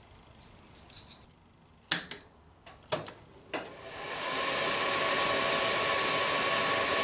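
A few sharp clicks, then the Hafco HM 54GV milling machine's spindle motor starts about four seconds in, rising to a steady whirring hum with a high tone.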